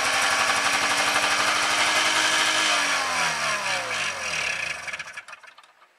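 1993 Arctic Cat Lynx snowmobile's fan-cooled two-stroke twin, cold-started after sitting three years, running steadily. About three seconds in its pitch falls away and the engine winds down and stops about five seconds in.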